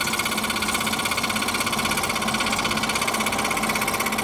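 Electric scroll saw running, its fine blade stroking up and down in a fast, even rhythm as it cuts a straight line through a thin board.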